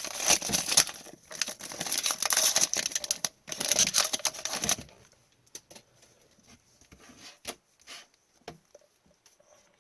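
A foil trading-card pack wrapper crinkling and tearing as it is ripped open, for about five seconds, then only faint small clicks and taps of cards being handled.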